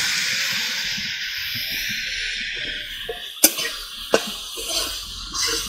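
Hog plum leaves sizzling in hot oil in a kadai, the sizzle slowly fading, with two sharp clicks of a metal spatula against the pan in the second half as the leaves are stirred.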